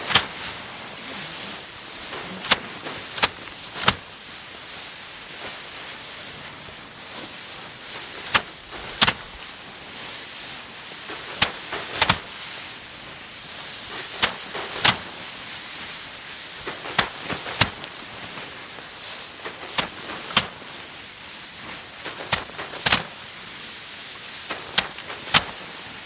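Irregular sharp cracks and snaps, about one a second and sometimes in quick pairs, over a steady hiss, from rice paddy being harvested by hand.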